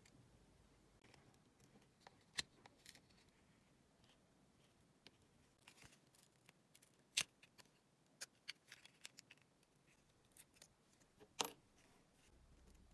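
A thin metal pry tool working the end cap off an iPod mini's aluminium shell: scattered small clicks and scrapes, with sharp snaps about seven seconds in and again near eleven and a half seconds.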